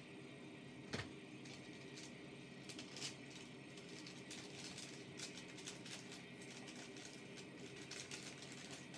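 A train running, with a steady hum, many light rattles and clicks, and one sharp knock about a second in.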